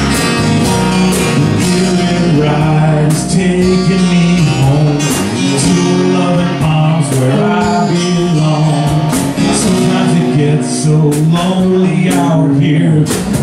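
Live band music: a man singing over two strummed acoustic guitars.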